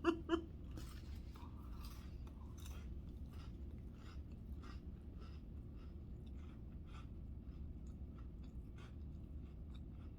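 A person chewing Ritz crackers topped with chicken salad: a string of small, irregular crunches, a little under one a second, over a faint steady low hum.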